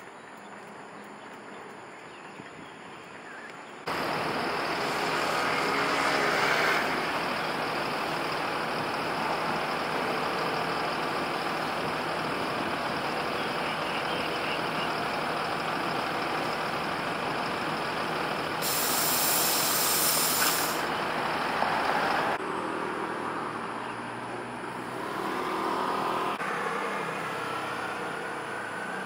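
Road traffic with a city bus, jumping much louder about four seconds in. About two-thirds of the way through, the bus's air brakes give a sharp hiss lasting about two seconds.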